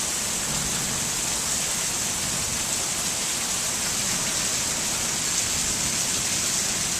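Heavy monsoon rain driven sideways by the wind, coming down in a steady, unbroken rush.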